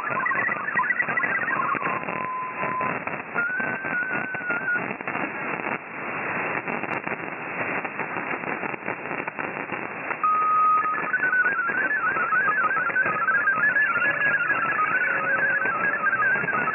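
Shortwave radio audio in single sideband with crackling static. MFSK64 digital-mode data tones hop and warble until about two seconds in, followed by two brief steady tones and several seconds of band noise and crackle. About ten seconds in a steady tone sounds, then the warbling hopping tones of MFSK32 text data begin.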